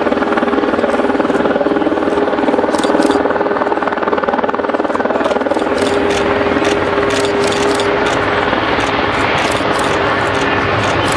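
Airbus A350-900's Rolls-Royce Trent XWB turbofan engines running at high thrust for the takeoff roll: a loud, steady jet roar with a held whining tone.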